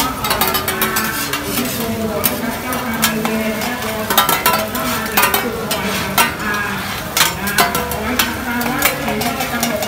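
Egg mixture frying on a large flat griddle, sizzling, while two metal spatulas scrape and clack against the hot surface in quick, irregular strikes.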